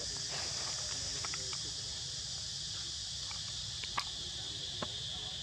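Steady high-pitched chorus of forest insects, with two sharp clicks, one about four seconds in and a fainter one just under a second later.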